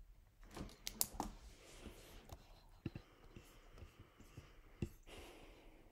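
Scattered light clicks and taps, the sharpest about a second in and near the end, with soft rustling between them.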